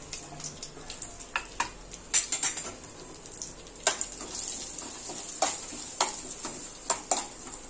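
Chopped cashew and almond pieces sizzling in a little ghee in a nonstick kadhai. A steel spoon scrapes and clinks against the pan at irregular moments as they are stirred and roasted.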